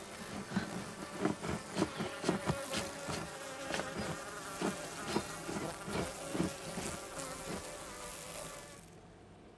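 A swarm of wasps buzzing steadily inside a large hanging paper nest, over repeated rasping strokes of a knife sawing at the wooden branch, about two a second. Shortly before the end both fall away to a much quieter hush.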